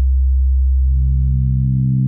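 Low sine tone from Ableton's Operator FM synthesizer held steady. About a second in, a modulator oscillator is turned up and the tone gains a stack of overtones as frequency modulation sets in.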